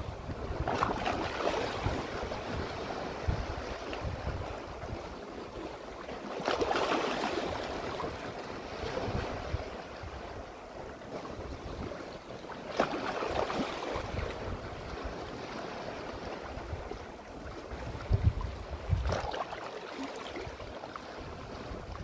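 Sea waves washing in among shoreline rocks, four swells of rushing water about six seconds apart, with wind rumbling on the microphone.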